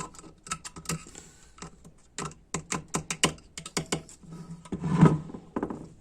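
Small metal transmission parts clicking and tapping against the valve body as springs and valves are fitted into their bores: a quick, irregular run of light clicks, with one louder knock about five seconds in.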